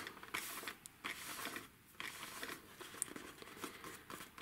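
Faint rustling and soft scuffing of designer paper as hands press and shift a freshly glued paper box, with a few light clicks.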